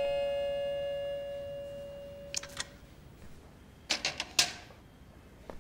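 Doorbell chime's last note ringing out and fading over about two and a half seconds. Then a couple of light clicks, and about four seconds in a quick clatter of metal and glass as a small ornamental silver frame is set down on a marble-topped cabinet.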